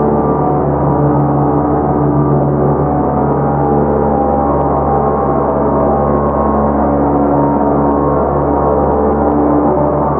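Ambient soundscape music: a loud, dense, steady drone of many overlapping held tones, with no beat.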